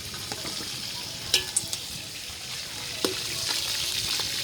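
Food frying and sizzling in a pot, with a steady hiss and a few sharp knocks of a stirring utensil against the pot, about a second and a half in and again about three seconds in.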